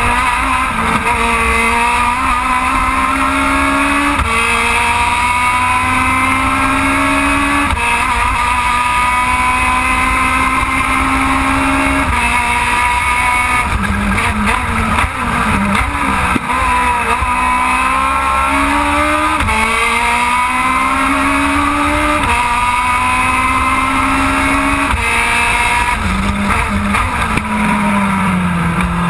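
Aussie Racing Car's Yamaha 1300 cc four-cylinder engine, heard from on board, revving up through the gears with quick upshifts every few seconds. About halfway through the revs fall and chop as the car brakes and downshifts for a corner, then it climbs through the gears again, and the revs drop once more near the end.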